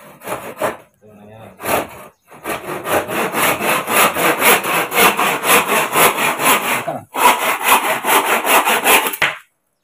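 Handsaw cutting through a bamboo pole in quick back-and-forth strokes, about three a second, with a brief pause about seven seconds in before the sawing resumes.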